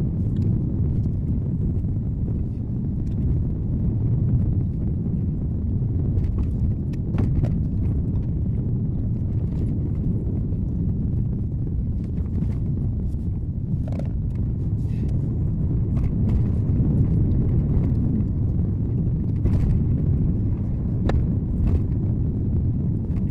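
Car driving, heard through a dashboard camera: a steady low rumble of road and engine noise, with scattered light clicks and knocks every second or two.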